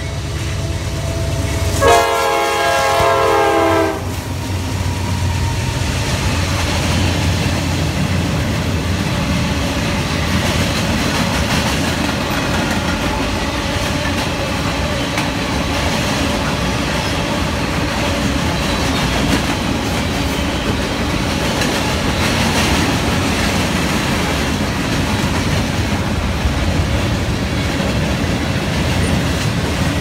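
Freight train led by two GE Dash 9 diesel locomotives. The lead locomotive's horn sounds one chord of several pitches for about two seconds a couple of seconds in, cutting off sharply. Then the locomotives' engines and a long string of freight cars roll past in a steady, loud rumble.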